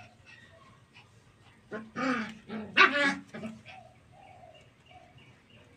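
Puppies barking: a quick cluster of about four sharp, high yaps about two seconds in, then a few faint short whines.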